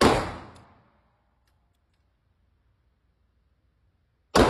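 Two shots from a CZ P10 C compact pistol, one at the start and one about four seconds later, each dying away in a short echo off the walls of an indoor range.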